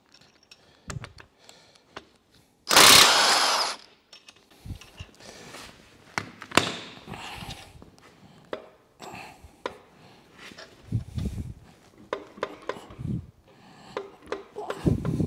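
A power tool runs in one burst of about a second, undoing the rear main bearing cap bolts on a Rover V8 block. After that come scattered metallic clinks and knocks, with a few dull thuds near the end, as the cap is worked off and the crankshaft is handled.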